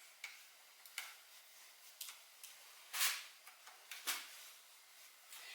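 Faint handling noise as the LCD display is taken off an electric bike: scattered light clicks and two short, louder scrapes, about three and four seconds in.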